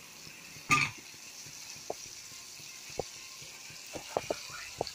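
Spice masala frying in oil in a kadhai, sizzling softly with scattered small pops as it roasts. A spatula scrapes the pan once, the loudest sound, about a second in.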